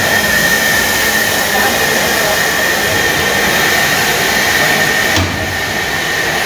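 Narrow-gauge KC-class steam locomotive blowing off steam, a loud steady hiss with a high whistling tone in it. The hiss eases a little about five seconds in.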